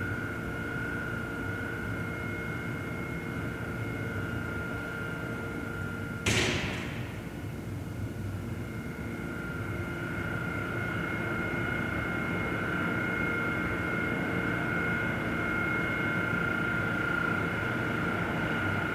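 A steady hum of several held tones, broken about six seconds in by a single loud bang or thud with a short echoing tail.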